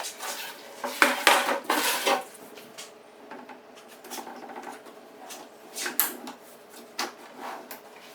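Metal ball-bearing drawer slides being handled and pulled apart: metal sliding and clicking against metal, with a cluster of scraping clicks about a second in and single sharp clicks later on.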